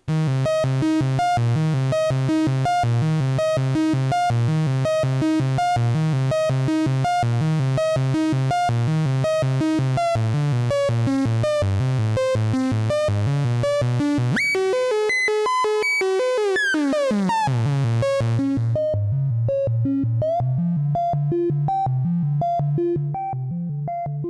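Kassutronics VCO 3340 Eurorack oscillator playing a fast repeating sequenced synth line with a bright, buzzy tone. About two-thirds of the way through, the pitch sweeps up and then glides down, and the sound turns dull as the high end is cut away, carrying on as a darker sequence.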